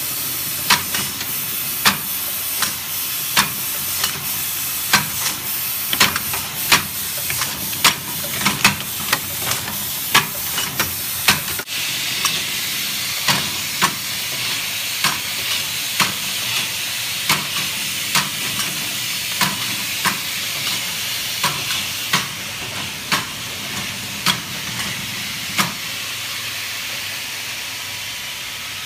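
Lotion pump inserter machine running at about 60 bottles a minute: sharp mechanical clacks roughly once a second as it cycles, over a steady hiss that grows brighter about halfway through.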